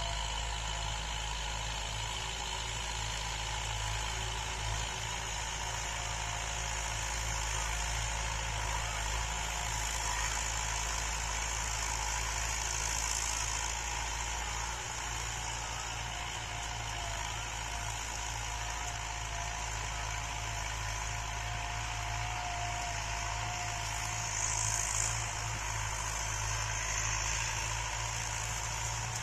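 Distant farm tractor engine running steadily while pulling a plow through dry soil.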